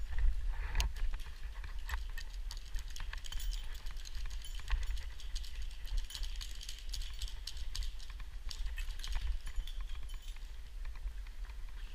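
Shoes tapping and scuffing on the rock wall during an abseil, with rope gear rattling: a dense run of small clicks and scrapes and a sharper knock about a second in, over a steady low rumble.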